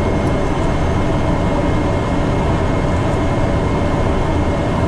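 Steady cockpit noise of an airliner on final approach: an even rush of airflow and engine noise with a faint steady whine above it.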